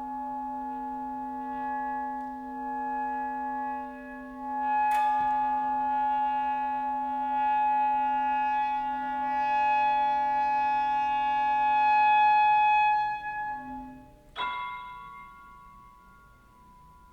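Contemporary chamber music for clarinet, violin, double bass, guitar and piano: long held notes, with a low note sustained underneath, swell slowly. A sharp struck attack comes about five seconds in. Near the end the held notes break off into a single struck note that rings and fades.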